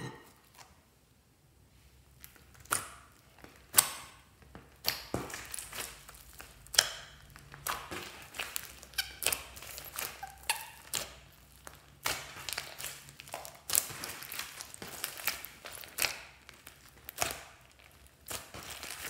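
Hands kneading and squishing a large mass of mixed slimes, including bead-filled floam, making irregular wet pops, squelches and crackles. The popping starts after about two seconds of quiet and comes in uneven clusters.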